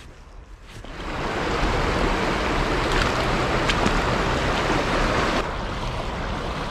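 Rushing river water, coming in loud and steady about a second in.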